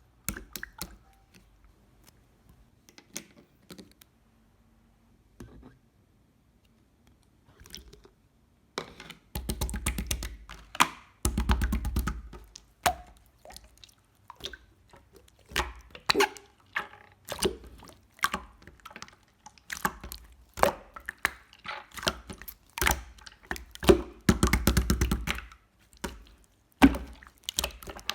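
Clear slime being worked by hand, making sticky clicks, pops and squelches. Only a few scattered clicks at first, then dense crackling squishes from about nine seconds in.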